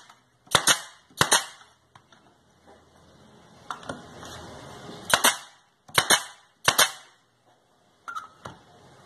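Pneumatic brad nailer firing five sharp shots into pine boards: two about a second in, half a second apart, then three more between five and seven seconds in. A few fainter knocks fall between the shots.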